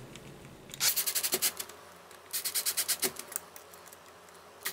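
Ryobi Tek4 cordless screwdriver driving screws into a plastic RC car chassis, in two bursts of rapid clicking about a second long each.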